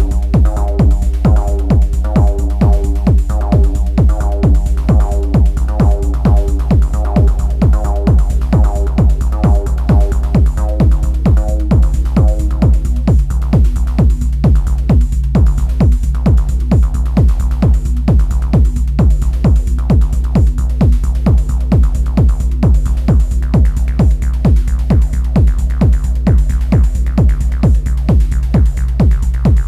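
Improvised techno played on an Elektron Analog Rytm drum machine: a steady pounding kick drum and bass under a repeating pattern of higher synth notes. The note pattern fades out about twelve seconds in, leaving the kick under held low tones.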